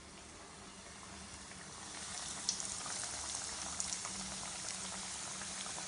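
Breaded chicken patties sizzling in hot oil, a steady crackling hiss that grows louder about two seconds in, with a few sharp pops.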